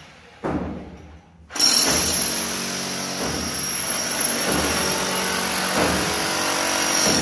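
Handheld electric power tool working masonry, which stops briefly and starts again about a second and a half in, then runs steadily with a high motor whine.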